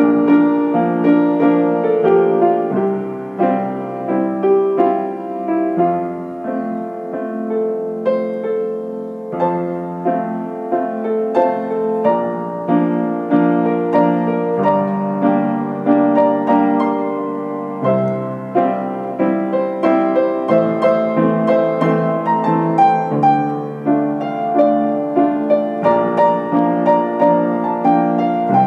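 Piano playing an original composition, chords under a melody line with notes changing every half second or so.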